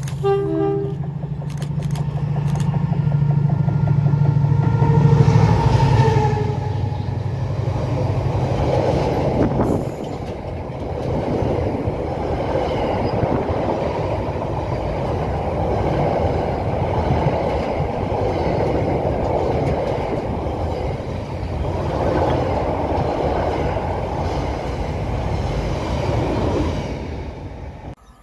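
Freight train passing close by: the locomotive's steady low running hum for the first ten seconds or so, with a short horn sound just after the start, then the long train of box wagons rumbling and clattering over the rails until it drops away near the end.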